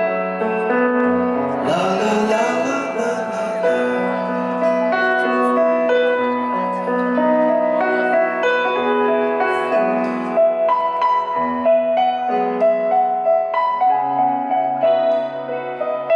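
Live folk band playing an instrumental break: a keyboard melody over guitars, bass and drums, heard from the crowd through the PA.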